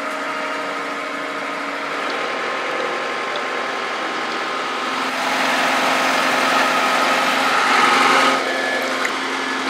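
Boat yard travel lift's engine running steadily, getting louder about halfway through and dropping back shortly before the end.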